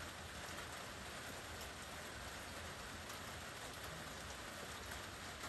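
Steady, faint rain falling, an even hiss with no distinct drops or knocks.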